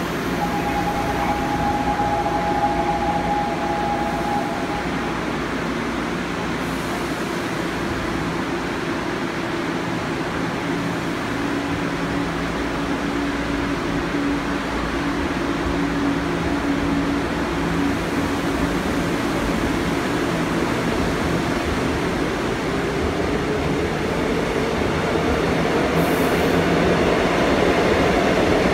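Seoul Metro Line 2 GEC chopper-controlled electric train pulling out of the station. Its electrical hum climbs in pitch and grows louder toward the end as it gathers speed, over the rumble of wheels on rail. A high steady tone sounds for the first few seconds.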